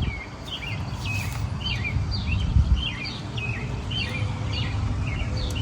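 A bird calling over and over, a short falling chirp about twice a second, over a steady low rumble.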